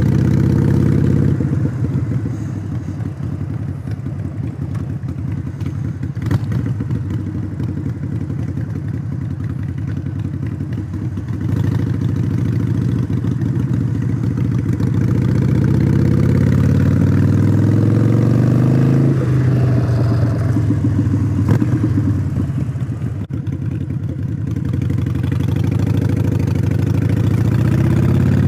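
Exhaust of a 2017 Harley-Davidson Iron 883 Sportster's air-cooled V-twin through Vance & Hines Shortshots slip-ons, stage 1 tuned, as the bike is ridden at low speed. The engine eases off after about a second, then its pitch climbs as it accelerates, drops sharply about two-thirds of the way through and climbs again near the end.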